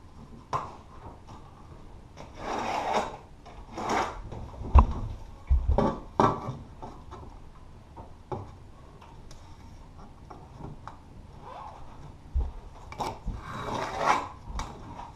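Irregular knocks and scraping from hands-on construction work, with a few heavy thumps and two longer scraping or rubbing passes, one early and one near the end.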